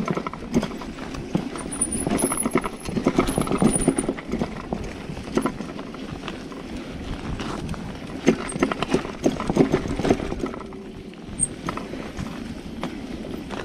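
Bicycle rattling over a rough dirt singletrack: a dense run of irregular knocks and clatter with tyres rolling on the dirt, easing off briefly near the end.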